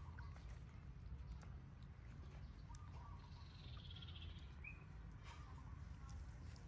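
Quiet outdoor background: a steady low rumble, with one short, faint high chirp about four and a half seconds in.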